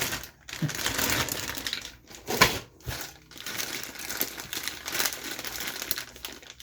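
Plastic parts bags crinkling and rustling as kit parts are handled and sorted, with clicks of hard plastic pieces and one sharp knock about two and a half seconds in.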